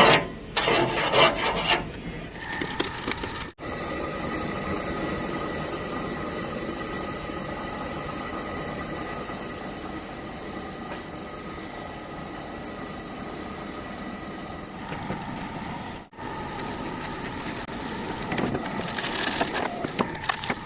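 Workshop tool noise during truck bodywork: a few sharp blows in the first two seconds, then a steady rasping, rubbing tool sound with a faint whine. It drops out abruptly twice.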